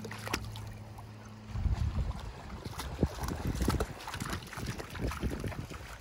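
Water splashing and sloshing around legs wading through a shallow, stony river, in irregular strokes, with wind on the microphone. A low steady hum stops about a second and a half in, when the splashing starts.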